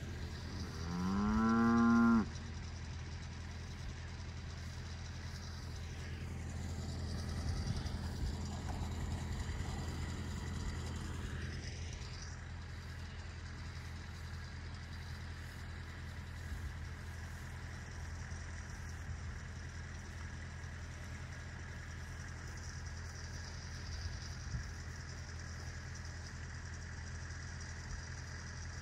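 A cow moos once near the start, one rising call about a second and a half long that cuts off sharply. A steady low hum runs under it throughout.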